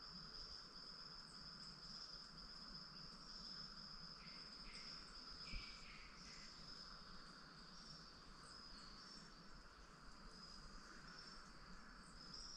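Quiet forest ambience: a steady, faint high-pitched insect trill, with a few short faint chirps about four to six seconds in and one soft tap midway.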